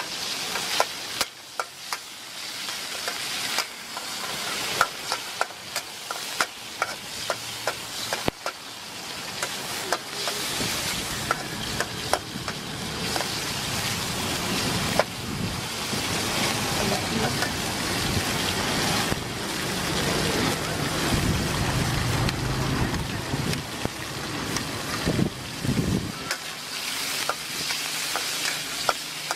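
Chicken pieces sizzling in oil in a metal wok, with a metal ladle scraping and clinking against the wok over and over as they are stirred. A low rumble builds up through the middle and drops away near the end.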